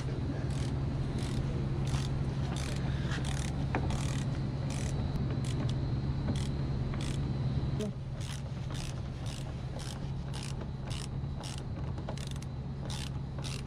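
A hand tool clicking over and over as the screws of a Scotty mount deck are turned down into its backing plate, roughly two short clicks a second in uneven runs. A steady low hum runs underneath and drops in level about eight seconds in.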